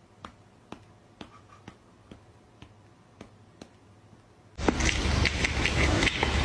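Light, sharp clicks or taps, about two a second, over near quiet; about four and a half seconds in, a sudden loud, dense noise full of small clicks cuts in.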